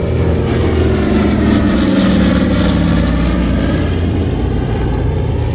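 Douglas C-47's twin radial piston engines droning as the plane makes a low flyby pass. The drone is loudest about two seconds in, then drops slightly in pitch as it passes and moves away.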